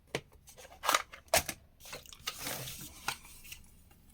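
Loose nails and small metal hardware being handled and dropped: a few sharp clicks, the loudest about a second in, and a short clattering rattle near the middle.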